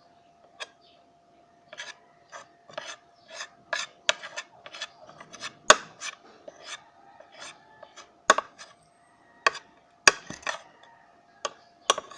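Close-up eating sounds: an irregular run of short scraping, crunching noises, two or three a second, with a few sharper clicks, over a faint steady hum.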